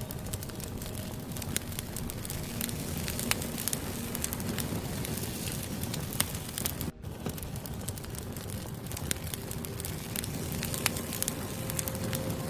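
Wood fire crackling in a fireplace: scattered sharp snaps and pops over a steady low rush of burning logs. The sound cuts out for an instant about seven seconds in.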